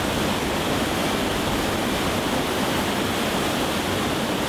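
Large whitewater rapids rushing: a steady, dense rush of churning water.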